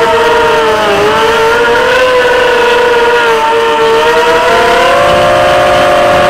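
Electric motors and propellers of an FPV drone whining, heard from its onboard camera. Several close pitches move together, dipping about a second in and climbing again around five seconds as the throttle changes.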